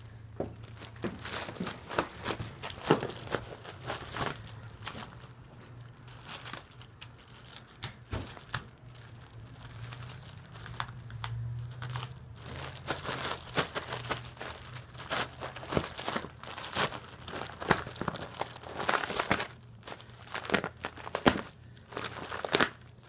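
A dachshund tearing and crumpling packaging material: irregular crinkling, ripping and sharp crackles, with a faint low hum underneath.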